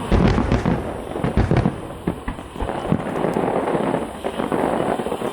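Fireworks finale: a rapid volley of aerial shells bursting, with deep booms, heaviest right at the start and again about a second and a half in, over continuous dense crackling.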